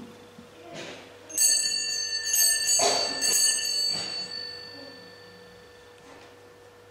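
Altar bells rung in several quick shakes, a bright high ringing that starts about a second and a half in and fades out over a few seconds. They mark the elevation of the chalice at the consecration. A faint steady hum lies underneath.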